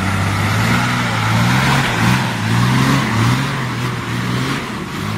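A minibus's diesel engine labouring under load as the bus pulls through deep mud, its note rising and falling several times.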